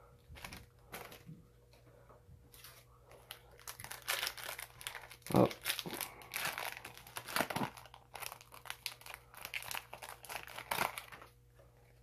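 Yu-Gi-Oh Extreme Force booster pack's foil wrapper crinkling as it is torn open by hand, in dense irregular crackles from about three seconds in until near the end, loudest a little past five seconds.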